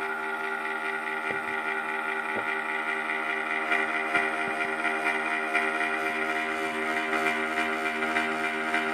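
Corsair CX550M computer power supply running loudly: a steady whirring hum made of several constant tones. It is a new unit that the owner considers too loud in operation.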